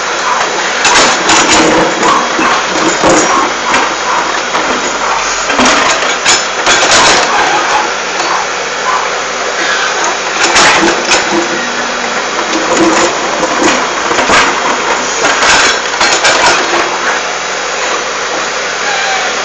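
Backhoe loader's diesel engine running under load, with irregular knocks and scrapes from the bucket working piled dirt.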